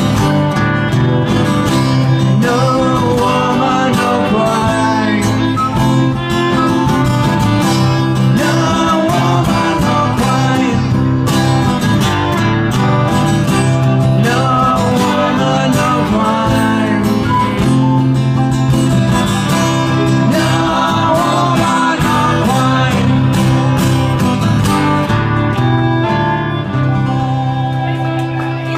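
Live acoustic folk music: a strummed acoustic guitar with a wavering melody line over a steady bass, played without a break.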